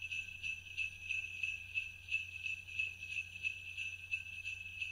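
Jingle bells shaken in a steady rhythm, about three shakes a second, ringing on between the shakes.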